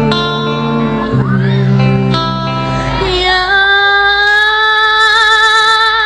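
A young woman singing live into a microphone over backing music. About three seconds in, she holds one long note with vibrato as the backing thins out.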